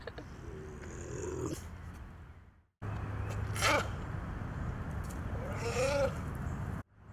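Recorded big cat vocalizations in two short clips, split by a sudden silent cut about three seconds in. A short call that rises and falls comes near the end, over a low steady hum.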